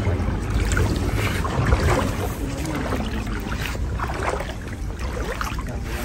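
Wind buffeting the microphone over splashing, sloshing sea water.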